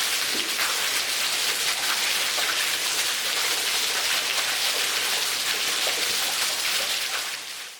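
Steady hiss of falling water, a dense spatter of splashing drops, fading out near the end.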